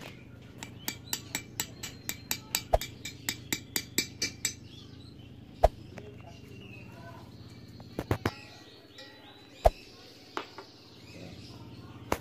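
Hammer striking a punch on the valve of a steel LPG cylinder to knock the cylinder's original valve loose: a quick run of sharp metal taps, about four a second, for the first few seconds, then a few separate knocks.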